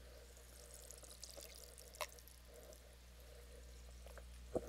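Near silence: room tone with a steady low hum and one faint click about two seconds in.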